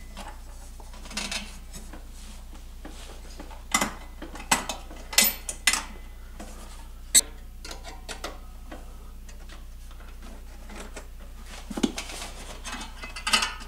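Scattered metallic clinks and clacks of steel exhaust springs being stretched and hooked onto a snowmobile's exhaust joint with a spring puller, the sharpest about seven seconds in, over a low steady hum.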